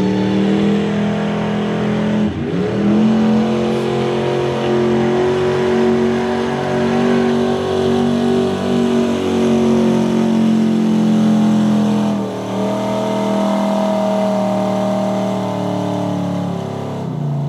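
Lifted Ford mega truck's engine running flat out as it pulls a weighted sled, held at a steady high pitch. The note dips briefly about two seconds in, changes again around twelve seconds, and falls away near the end.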